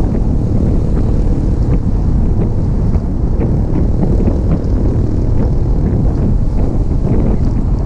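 Wind buffeting the microphone of a vehicle moving along a road, over a steady rumble of engine and road noise.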